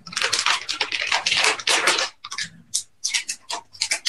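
Plastic packaging bags crinkling as they are handled: a dense crackle for about two seconds, then a few short separate crackles.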